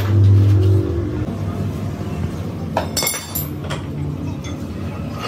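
A steady low motor hum, loudest in the first second, with a quick cluster of metal clinks about three seconds in and a few single ticks after.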